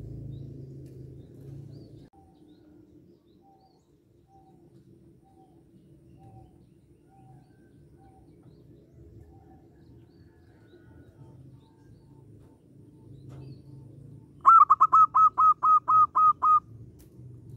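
Zebra dove (perkutut) calling: a rapid run of about ten short, clear cooing notes near the end, much louder than anything else. Earlier, faint soft notes repeat evenly about twice a second.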